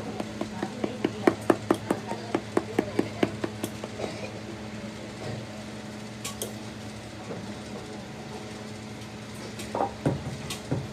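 Quick series of light taps and knocks, about four or five a second, from handwork in a shoe workshop, over a steady low hum. The tapping stops after about four seconds, and a few more knocks come near the end.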